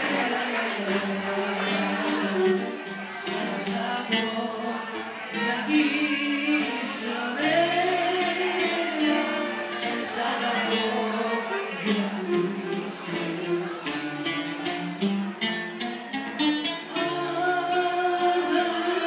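A woman singing into a microphone over instrumental accompaniment, her voice holding and bending long notes.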